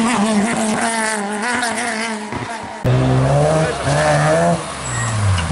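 Two rally cars passing at speed, cut together. First a Peugeot 306 rally car's engine runs at high revs with a wavering pitch. Then a BMW E36 rally car's engine note climbs twice as it accelerates and drops away near the end.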